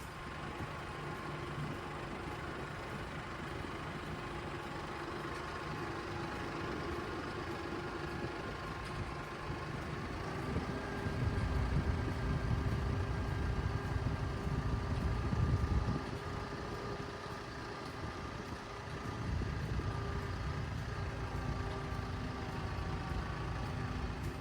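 A vehicle engine running steadily. It grows louder for a few seconds about halfway through, eases off, then picks up again near the end.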